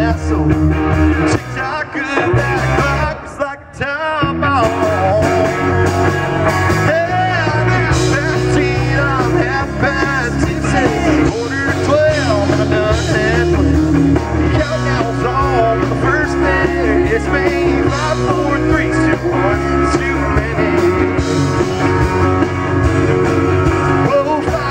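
Live country-rock band playing, with acoustic and electric guitars, electric bass and drums under a male lead vocal. The music drops out briefly about three to four seconds in.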